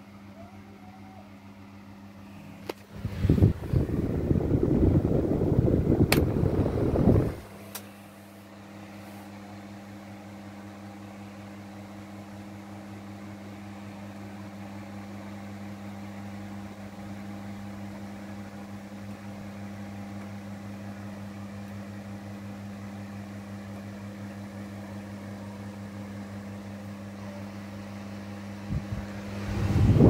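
Imarflex table fan running with a steady low motor hum and the rush of its air. Between about 3 and 7 seconds a loud, low rushing noise drowns the hum. Near the end the same rush returns as the microphone meets the fan's airflow at the grille.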